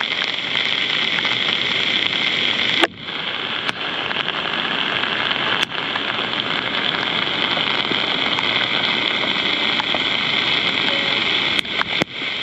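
Heavy rain falling, a steady hiss, broken by a few light clicks and a brief drop-out about three seconds in and again near the end.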